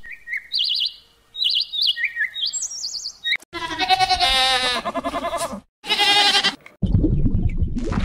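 A goat bleating twice in long, trembling calls, after about three seconds of quick high bird chirps. A low rushing noise follows near the end.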